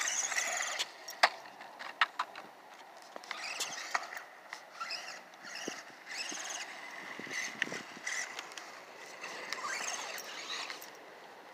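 Small electric motor of a Redcat Volcano 18 RC monster truck whining up and down in short spurts as it speeds up and slows, with scattered sharp ticks and clicks, the loudest about a second in.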